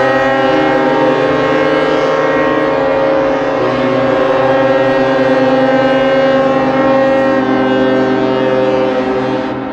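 Several ships' horns sounding at once in long, steady, overlapping blasts at different pitches. Some drop out and others join in partway through, and the sound eases off near the end.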